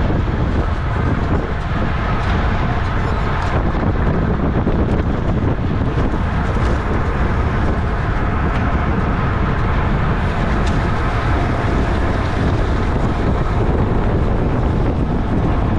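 Steady wind rushing over the microphone of a camera riding along on a racing bicycle at speed, a constant low buffeting roar with road and tyre noise underneath.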